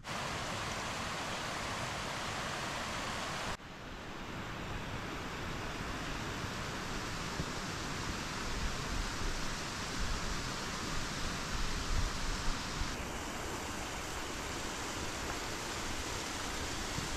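Steady outdoor rushing noise with an uneven low rumble underneath, changing abruptly about three and a half seconds in and again near the 13-second mark.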